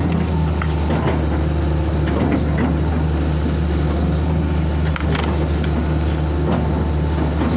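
Hitachi excavator's diesel engine running steadily, heard from inside the cab as the boom and bucket work. Occasional short knocks and cracks sound over the engine.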